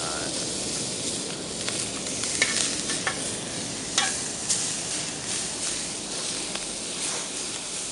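Meat sizzling on a barbecue grill, a steady crackling hiss with a few sharp clicks scattered through it.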